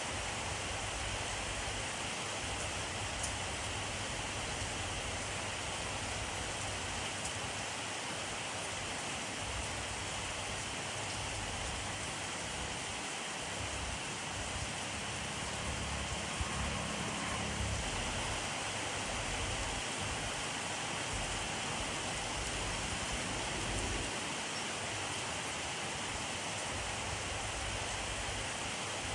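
Steady rainfall: an even hiss of rain falling on surfaces, with a faint low rumble swelling for a few seconds around the middle.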